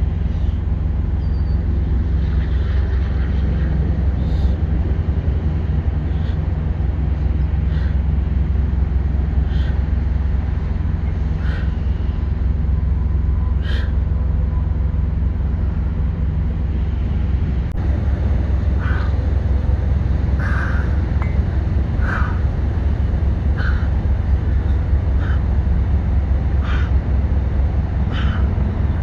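Steady low rumble of outdoor background noise with short bird chirps every second or two, the chirps coming more often in the second half.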